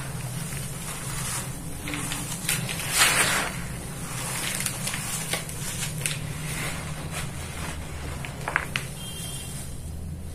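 Soft, powdery dry red dirt sifting and crumbling through hands in a bowl: a soft hissing rustle, with a louder pour of falling dirt about three seconds in and a few small crisp crunches about eight and a half seconds in. A steady low hum lies underneath.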